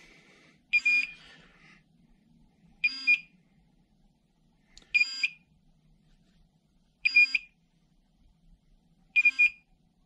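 TOPTES CT-580 portable carbon monoxide detector sounding its alarm: five short, high double beeps about two seconds apart. It is warning of raised carbon monoxide from smoke held near its sensor, the reading around 150 ppm.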